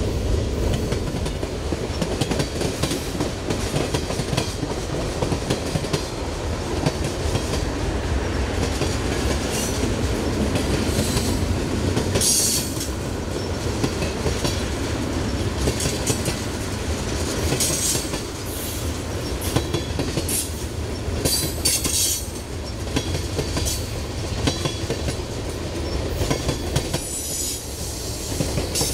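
Freight train cars (covered hoppers and tank cars) rolling past at close range: a steady rumble of steel wheels on rail with clicking over the rail joints, and brief high-pitched wheel squeals now and then.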